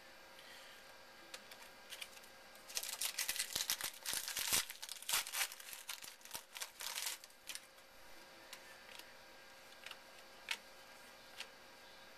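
Crinkling and tearing of a trading-card pack wrapper being opened by hand, a dense crackle that runs for about four seconds starting roughly three seconds in. Before and after it, a few light clicks of cards being handled.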